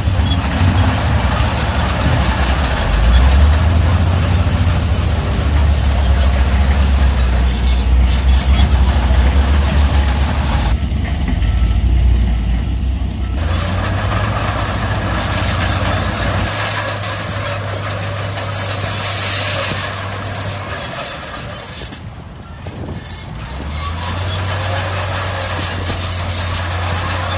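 Heavy diesel earthmoving machinery running: a deep, steady engine rumble with clattering noise on top. The clatter thins out briefly about halfway through, and the sound dips for a moment after about 22 seconds.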